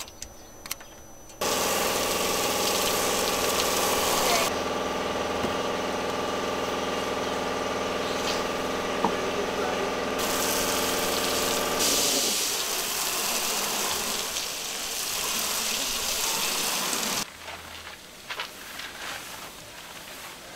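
Pressure washer spraying the side of a school bus: a loud hiss of water over the steady hum of its motor and pump. It starts suddenly, the hum drops out partway through while the spray goes on, and it all cuts off sharply near the end.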